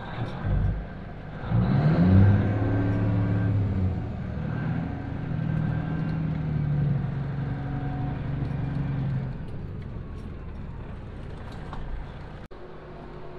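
A semi truck's diesel engine, heard from inside the cab, revs up about a second and a half in as the truck is towed out of the snow by a tractor. It pulls steadily under load for several seconds, then eases back to a lower rumble near the end.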